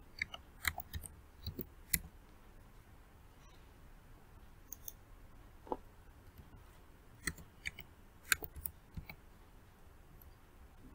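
Faint scattered clicks of a computer mouse and keyboard: several in the first two seconds, then single keystrokes, with a small cluster about seven to nine seconds in.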